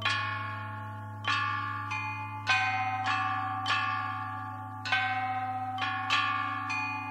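Bell tones struck about ten times at uneven intervals, each ringing out and fading, over a steady low drone: a slow bell soundtrack.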